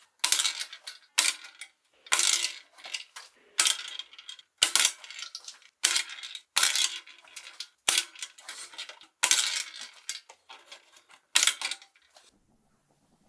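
Restored tabletop mini soccer game being played: sharp metallic clacks about once a second, each with a short ring and small rattles after it, stopping about twelve seconds in.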